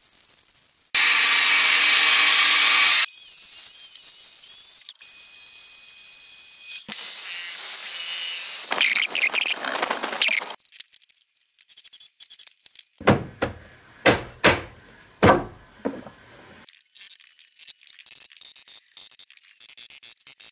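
A string of short, quickly cut power-tool sounds: a loud burst of a detail sander working pine, then brief tool runs with a high thin whine, and a cluster of sharp knocks a little past the middle.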